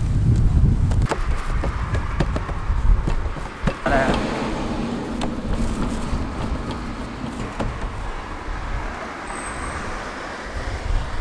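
Street traffic rumble, loudest at first and easing off, with scattered clicks and knocks from the vendor's work and a brief wavering pitched sound about four seconds in.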